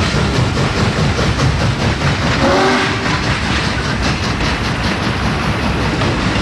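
Train running along the track with a steady rhythmic clatter, and a short whistle toot about two and a half seconds in.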